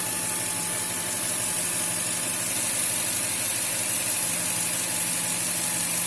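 2000 Toyota Tundra's 4.7-litre V8 idling steadily with a constant hiss: an internal vacuum leak in the brake booster drawing air, the unexpected cause of the lean P0171 code.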